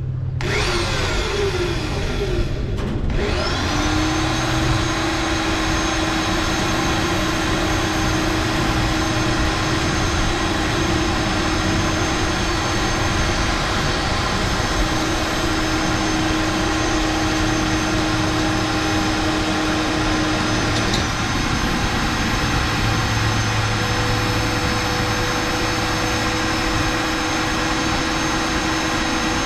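Cordless drill running steadily under load as it bores into sheet steel, a continuous motor whine that starts about half a second in and settles to an even pitch after a few seconds. About 21 s in there is a click and the whine changes pitch.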